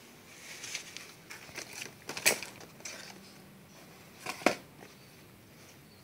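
Light scraping and rustling in a cardboard box as a turtle is handled, then two sharp knocks about two seconds apart: the turtle's hard shell striking the box and the tile floor.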